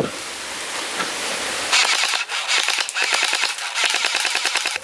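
Automatic gunfire from a toy gel-ball blaster being fired at targets. A steady hiss comes first, and then from about two seconds in a rapid run of shots, about ten a second, that stops just before the end.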